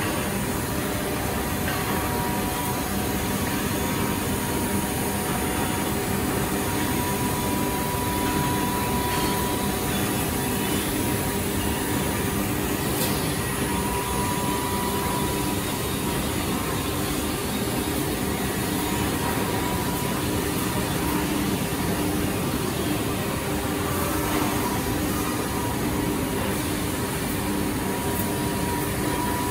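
SMYM-1825R1BP CNC router running with a steady machine drone and a faint whine that comes and goes, as its loading rollers push a wood panel onto the work table.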